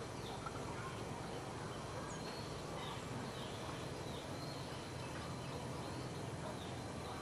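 Outdoor garden ambience: a steady background hiss and low hum, with faint, short, high chirps repeating about once a second.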